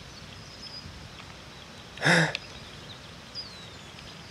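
Steady outdoor background noise at a lakeshore, with a short hummed vocal sound from a person about two seconds in, like an 'mm' or 'uh', and a faint high falling whistle shortly after.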